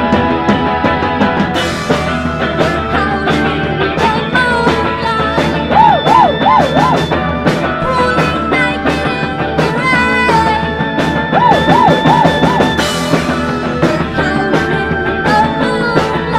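A rock band playing psychedelic rock: electric guitar, drum kit with cymbals, and electric keyboard holding sustained notes, with a woman singing over it.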